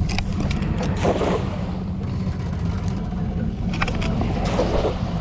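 A small boat's outboard motor idling in neutral with a steady low running sound. A few short clicks and rattles come over it, about a second in and again near four seconds.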